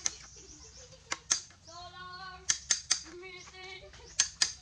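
Hammer striking a nail into a bamboo pole: sharp knocks, mostly in quick pairs, about eight blows in all. Two short high-pitched calls are heard between the blows.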